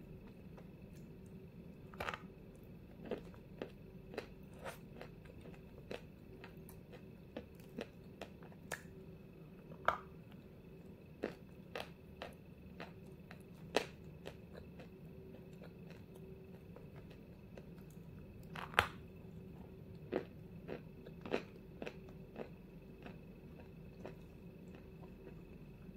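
Close-up crunching and chewing of a dry white chunk of eating chalk-like clay: scattered crisp crunches as it is bitten and chewed, the loudest a little past the middle, over a faint steady hum.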